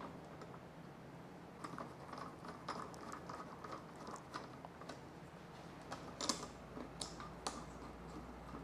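Faint, irregular small clicks and ticks of a hand screwdriver working the screws that hold a motorcycle windshield to its fairing, starting about a second and a half in.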